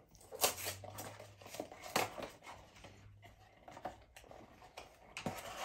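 Small cardboard blind box being opened and handled by hand: irregular rustles and scrapes of the flap and packaging, with a few sharper clicks.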